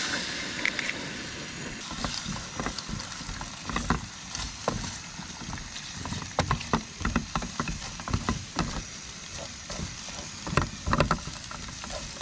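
An egg cracked into a hot aluminium mess tin on a small gas canister stove, then a silicone spatula stirring and scraping it, with irregular clicks and knocks against the tin over a steady hiss of frying. The knocks are loudest near the end.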